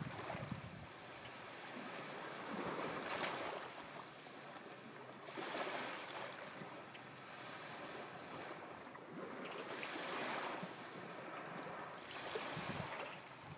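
Small sea waves breaking and washing up a sandy beach, each one a rush of surf, about every three seconds.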